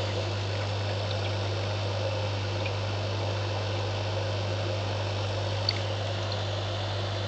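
Aquarium filter or pump running: a steady low hum under an even wash of moving water, with one small click late on.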